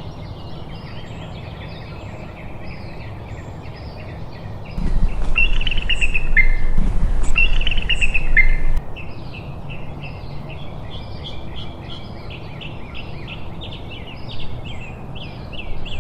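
Birds calling: a steady run of quick high chirps, with a louder stretch in the middle holding two shrill calls that slide down in pitch.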